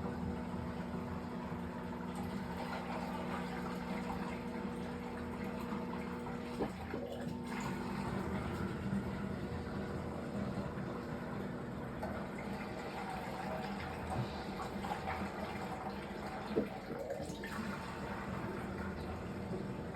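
Fisher & Paykel MW059NZ washing machine filling with water, a steady rush of water into the drum. A steady hum stops with a click about a third of the way in, and another single click comes near the end.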